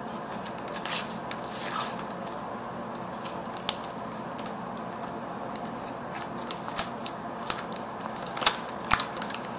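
Paper envelope being torn open by hand: short rips, crinkles and sharp paper crackles at irregular moments, several of the loudest near the end.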